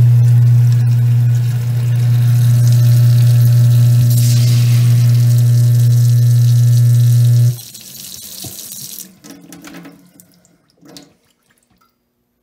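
Kitchen faucet running into a stainless steel sink and over a cast iron pan, with a steady low hum alongside the rushing water. The tap is shut off about seven and a half seconds in, and a few faint knocks follow.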